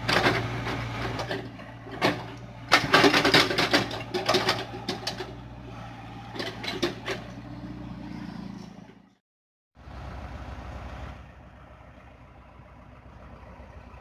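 Hyundai excavator's diesel engine running, with a rapid string of loud knocks and bangs from the machine at work. After a short break about nine seconds in, the engine runs on steadily with a low, even throb.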